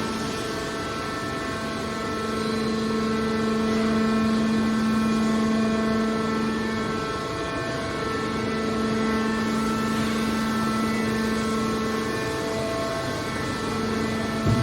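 Hydraulic metal baler's power unit running with a steady, even-pitched hum, dipping slightly about halfway through.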